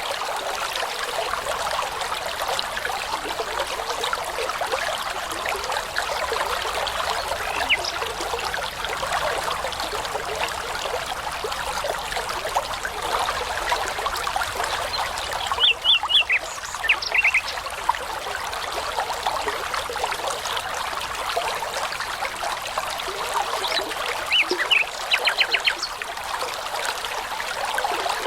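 A babbling brook running steadily, with a songbird breaking in twice, about halfway through and again near the end, each time with a short phrase of rapidly repeated high notes.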